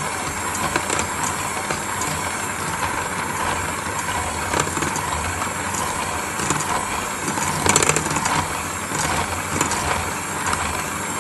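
Electric hand mixer running steadily at speed, its twin beaters whisking thin cake batter in a stainless steel bowl, with a few sharp clicks along the way.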